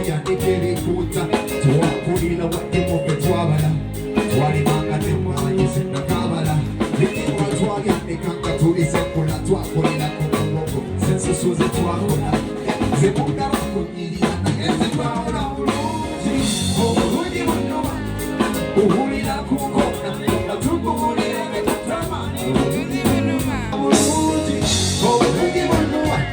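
Band music with a steady drum beat, guitar and singing.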